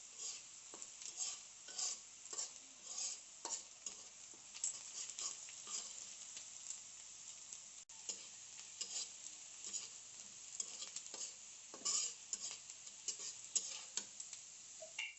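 A spatula scraping and stirring food frying in oil in a pan, with repeated strokes about twice a second over a steady sizzle.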